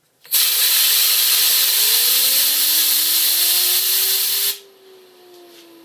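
Compressed air from an air compressor hissing loudly onto a fidget spinner for about four seconds, the spinner's whine rising in pitch as it speeds up. The air cuts off suddenly, and the spinner keeps whirring, its pitch slowly falling as it coasts.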